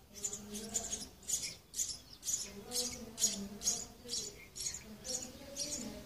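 House sparrow nestlings begging while being fed at the nest: a rapid, steady run of short, high-pitched cheeps, about two to three a second.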